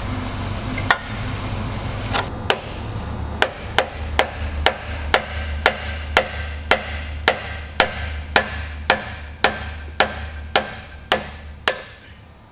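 Chisel being struck to knock a tilt-cylinder rod's jam nut loose: sharp, ringing metal-on-metal blows. A few scattered blows come first, then a steady run of about sixteen at roughly two a second.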